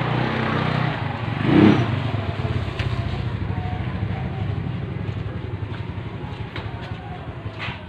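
Small motorcycle engine running steadily at low speed, with a brief louder swell about one and a half seconds in and a sharp click near the end.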